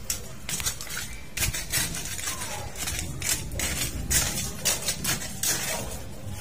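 Irregular rustling and scraping, short bursts about two or three a second, over a steady low rumble.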